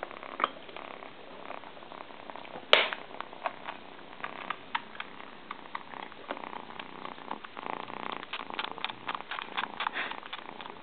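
Kitten suckling on a baby-bottle teat: a string of small wet clicks and smacks that grows dense in the second half. One sharper knock comes about three seconds in.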